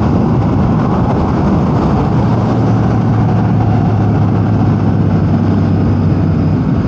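Royal Enfield Super Meteor 650's parallel-twin engine running steadily while riding, under heavy wind and road noise on the rider's microphone. The engine note settles into a steady hum about two and a half seconds in.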